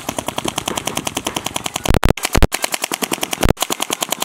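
Paintball markers firing in rapid strings, about a dozen shots a second, with the sound cutting out abruptly a few times.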